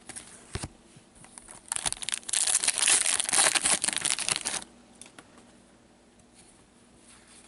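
Wrapper of a hockey card pack being torn open and crinkled: a dense rustle beginning about two seconds in and lasting about three seconds, with a few light clicks before it.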